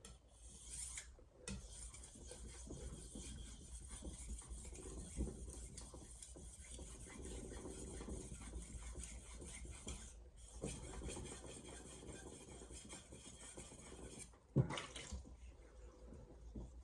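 Steel knife blade rubbing back and forth across a wet 1000-grit Shapton Glass whetstone in a long run of sharpening strokes, with a brief pause partway through. A single sharp knock sounds near the end.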